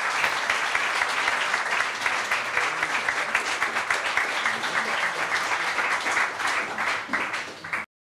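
Audience applauding: a dense, steady patter of many hands clapping, which cuts off suddenly near the end.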